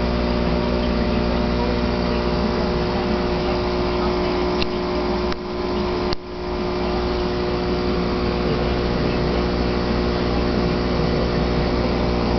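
Steady machine hum of running aquarium equipment, with several constant tones under an even noise. About five to six seconds in there are a couple of faint clicks and a brief dip in level.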